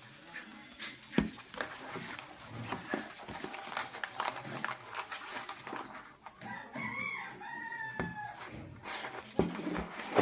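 A rooster crowing once, a drawn-out call of about two seconds past the middle, over scattered short clicks and knocks.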